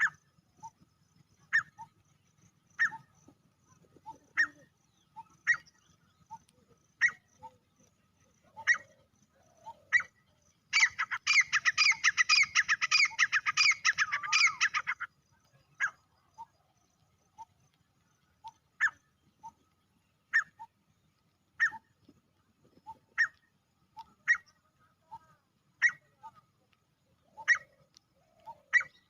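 Male grey francolin calling. It gives sharp single notes spaced about a second and a half apart. Partway through, it breaks into about four seconds of loud, rapid, repeated calling, then goes back to the spaced single notes.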